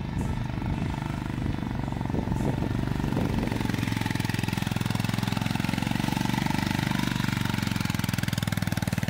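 Honda GB350's air-cooled single-cylinder engine pulling the bike up a steep hill, its rapid exhaust beat getting louder over the first few seconds and then holding steady.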